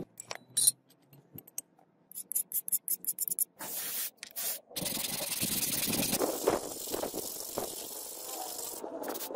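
A few light metallic clicks and ticks, then sandpaper scraping back and forth over a steel knife blade as it is hand-sanded, a steady hiss with repeated strokes through the second half.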